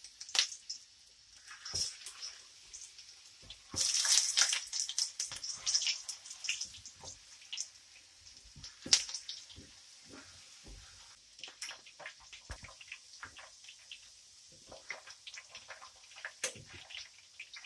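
Peeled potato halves frying in a pan of hot vegetable oil: steady crackling and spitting, with louder bursts of sizzling in the first few seconds as more potatoes are dropped in, the biggest about four seconds in.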